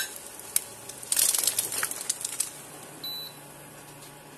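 An egg frying in hot oil in a stainless honeycomb wok, sizzling with scattered pops and crackles. The sizzle swells about a second in and dies down to a faint hiss near the end.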